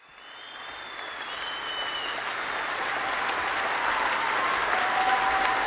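A large crowd applauding and cheering, fading in from nothing and swelling steadily. A high whistle, falling slightly in pitch, rings over it in the first two seconds.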